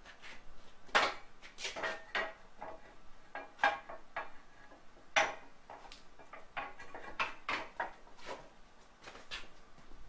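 Metal tools and parts clinking and clunking as they are handled and set down on a shop cart, in irregular knocks; the sharpest come about a second in, again near the middle, and once more a little after.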